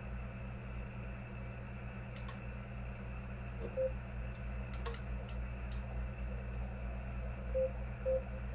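Xiegu X5105 transceiver's receiver hiss on 80 meters over a steady low hum, with faint clicks and three short beeps as its frequency is stepped.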